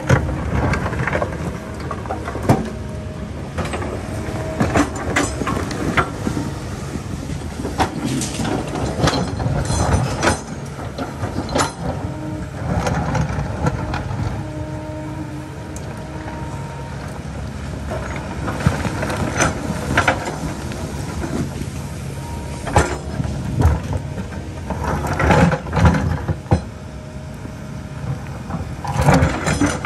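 Kobelco hydraulic excavator at work: its diesel engine runs steadily while the steel bucket scrapes and knocks against rock, with repeated sharp clanks and impacts, the loudest cluster near the end.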